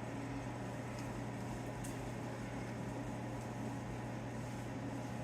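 Steady low electrical hum with faint hiss: shop room tone, with a couple of faint small ticks.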